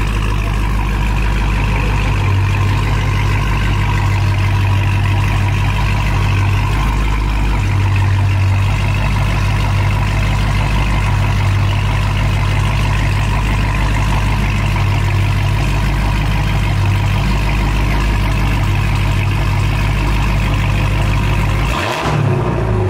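Dodge Charger Hellcat's supercharged 6.2-litre Hemi V8 idling steadily, loud and deep through a straight-piped exhaust with the mufflers and resonators removed.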